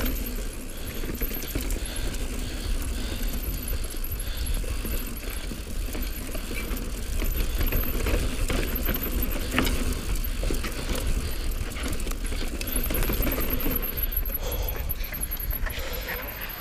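Mountain bike ridden down a rocky dirt trail: wind rumbling on the microphone over tyres crunching on dirt and rock, with the bike rattling and clicking over the bumps.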